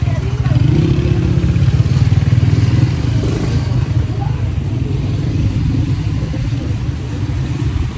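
Small motorcycle engines running close by as motorbikes pass along a narrow walkway. A steady low engine rumble, louder for the first three seconds and then a little lower.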